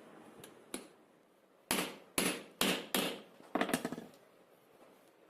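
New SKF bearing being tapped into its housing with a hammer: a faint click, then about five sharp metallic strikes with short ringing tails, the last a quick rattle of taps.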